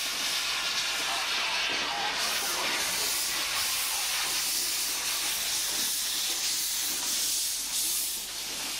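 Metre-gauge Mallet steam tank locomotive blowing steam from around its cylinders as it moves slowly: a steady, loud hiss.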